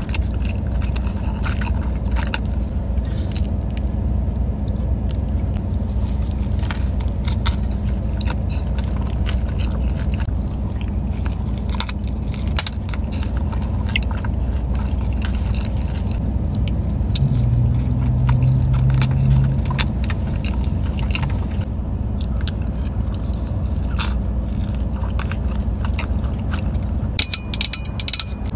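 Close-up chewing of a burrito, with wet mouth clicks and smacks, over the steady low hum of a car cabin. A stronger low drone swells for a couple of seconds past the middle, and a quick run of clicks near the end comes as a water bottle is handled.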